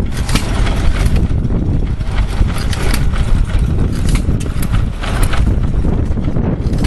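Several antique stationary flywheel gas engines running together: a dense, irregular beat of exhaust pops and mechanical knocks over a low thumping.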